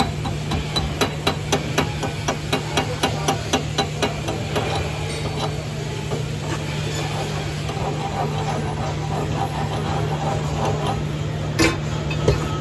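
Welder's chipping hammer knocking slag off a fresh weld bead on steel: about three sharp metal taps a second for the first four seconds, then lighter, faster chipping. Two louder metal clanks near the end, over a steady low hum.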